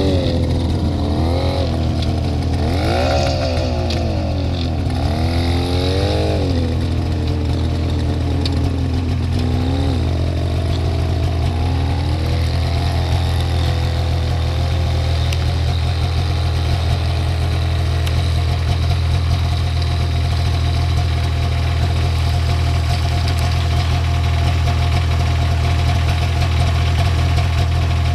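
Engine of a homemade four-wheel-drive all-terrain vehicle running as it drives off. Its pitch rises and falls repeatedly over the first dozen seconds as it revs, then it holds a steadier speed.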